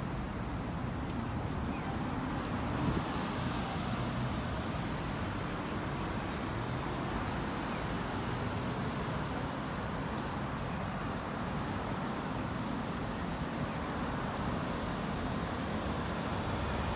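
City road traffic: cars and other motor vehicles passing in a steady, even rumble.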